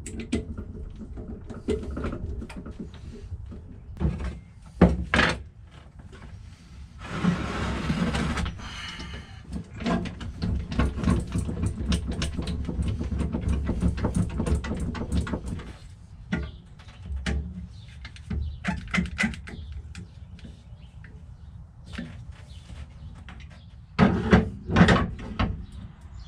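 Benchtop drill press running and drilling a hole, with scraping and clicking of the bit and work, over a steady low motor hum for roughly the first sixteen seconds. A few loud knocks come near the end.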